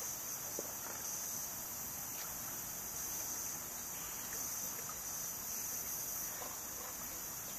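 Steady high-pitched insect chorus with a low wash of water under it and a few faint clicks.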